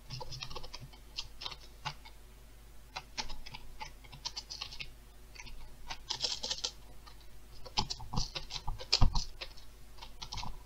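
Typing on a computer keyboard: irregular keystrokes, some in quick runs, others spaced out with short pauses.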